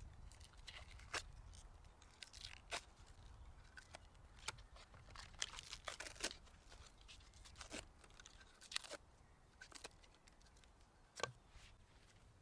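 Hand food preparation while marinating a steak: irregular crisp crunches and crackles, a dozen or so scattered sharp ones, over a faint low rumble.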